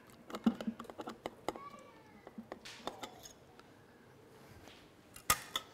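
Kitchen utensils clicking and scraping against a pot as the last of the cream is scraped together. A brief squeak comes about one and a half seconds in, and a sharp clink comes near the end.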